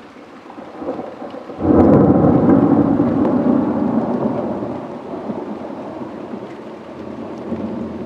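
Thunder from a cloud-to-ground lightning strike: a rumble that builds, breaks into a loud crack-and-rumble about a second and a half in, then rolls on and slowly dies away.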